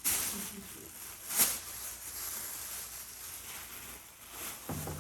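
A bird trapped indoors being chased with a bag: two sharp rustles, the louder about a second and a half in, then a low cooing begins near the end.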